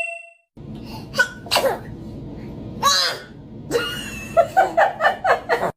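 Newborn baby sneezing several times in short, sharp bursts, with a chime fading out at the very start.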